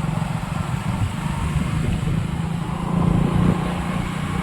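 A road vehicle's engine running steadily while travelling, a continuous low hum.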